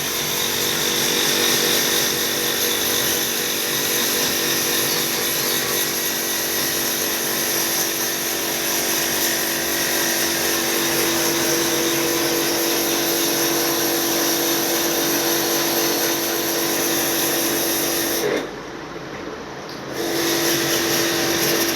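Steady whir of a motor-driven machine with a droning hum, cutting out for about a second and a half near the end and then starting again.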